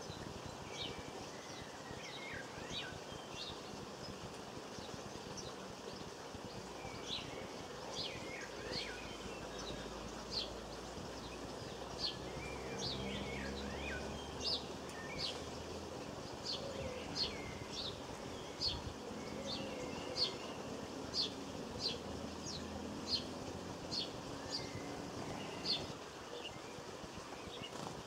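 Small songbirds calling: a long series of short, sharp, high-pitched chips, one or two a second, growing more regular and frequent from about ten seconds in, with a few softer twittering notes among them.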